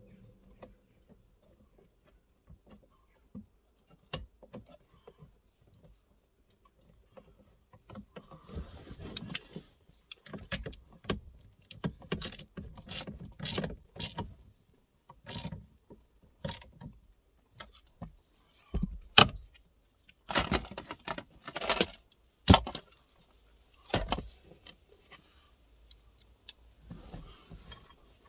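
Irregular clicks, clinks and short rattles of metal earth leads and wiring being handled and fitted by hand around a car's engine control unit. The first several seconds are nearly quiet, then the clicking gets busy, with a few sharper clacks in the second half.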